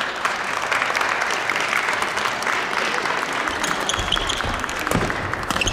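Spectators applauding: many overlapping hand claps.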